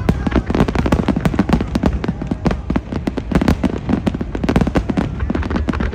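Fireworks display: a dense, continuous barrage of sharp bangs and crackles, several a second, over a low rumble of booms.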